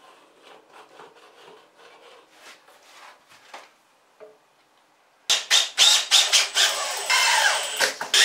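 Cordless drill driving screws through plywood into a solid mahogany block, starting about five seconds in, with short runs as the motor speeds up and slows. Before that, faint rubbing and light taps as the glued pieces are set in place.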